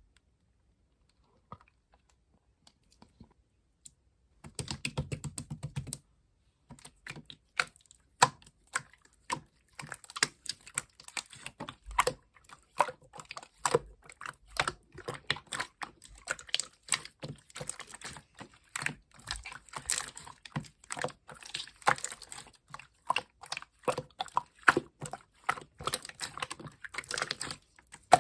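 Slime worked by hand, giving a dense, irregular run of small clicks and pops that starts about four seconds in, after near silence.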